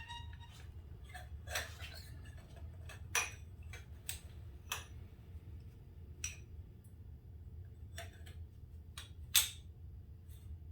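Scattered light metallic clicks and taps at irregular intervals as fork parts and tools are handled, with a sharper knock about nine seconds in, over a steady low hum.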